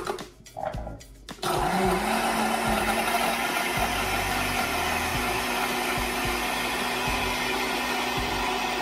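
Countertop blender switched on about a second and a half in, after a few light knocks. The motor spins up, its pitch rising briefly, then runs steadily as it blends a smoothie with ice.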